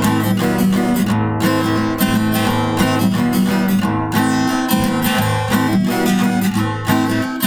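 Acoustic guitar strummed in a steady rhythm: the instrumental intro to a campfire song, before the singing begins.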